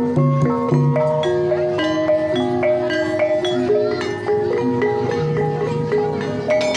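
Javanese gamelan music in the Banyumasan tayub style: struck mallet instruments play a stepwise melody of ringing, held notes over a low sustained part.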